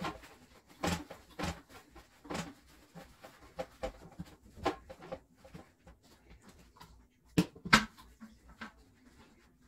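Scattered light knocks and rustling of household cleaning by hand, with two sharp knocks close together about seven and a half seconds in.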